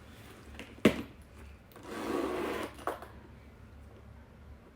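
A handbag being opened and handled: a sharp click about a second in, then just under a second of rustling, rasping noise, and a second, lighter click.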